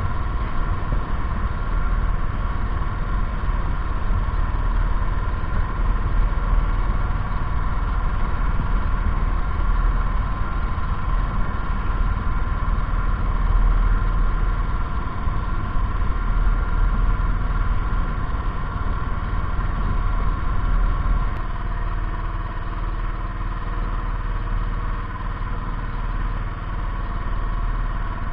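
Engine running steadily, a little quieter for the last few seconds.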